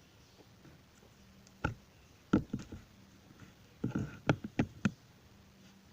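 A spoon knocking against a plastic mixing container: sharp clicks and knocks, a single one then two quick clusters, the louder cluster about four seconds in.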